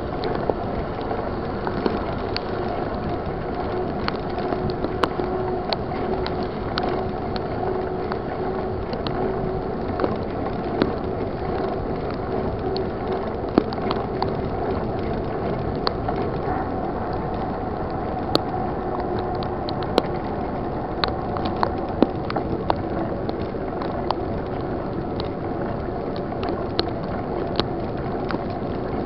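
Mountain bike rolling along a wet paved road in heavy rain: steady rushing tyre and water noise under a faint steady hum, with frequent sharp ticks and rattles.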